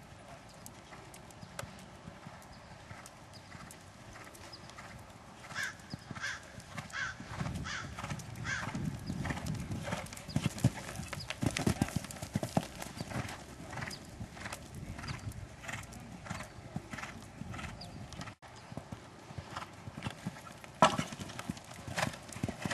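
Hoofbeats of a gray horse cantering on dirt arena footing, in a steady rhythm that grows louder about five seconds in as the horse passes close by.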